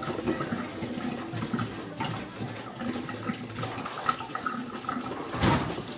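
Water running and splashing, with a louder rush about five and a half seconds in.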